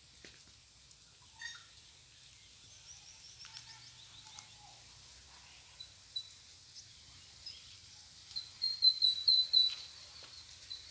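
A small bird chirping: scattered high calls, then a quick run of about eight loud, rapid chirps near the end, over faint rustling and clicks.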